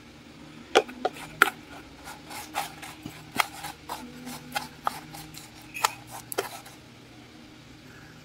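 Chicken pieces being tossed and pressed through dry breadcrumbs in a container: an irregular run of crisp, crunchy scrapes and taps that stops about seven seconds in.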